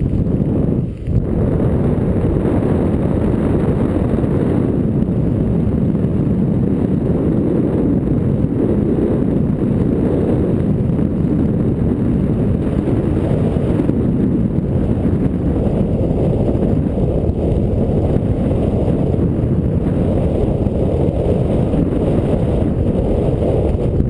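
Steady wind rushing over a GoPro's microphone under a parafoil canopy, a deep noise with one brief dip about a second in.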